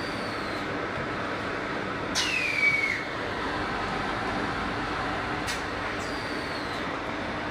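Automatic L-bar sealer and thermal shrink tunnel running: a steady blower-like rush, with a sharp click and a short falling whine about two seconds in and again about three seconds later as the machine cycles.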